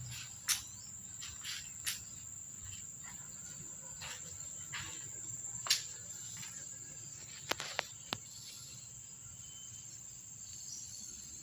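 Insects chirring steadily at one high pitch, with a few short sharp clicks and taps scattered through it.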